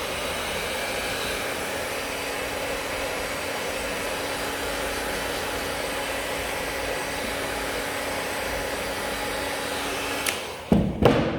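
Hot-air gun blowing steadily with a faint steady whine, warming the glue on the TPU to dry and activate it. It is switched off with a click about ten seconds in, followed by a few loud knocks.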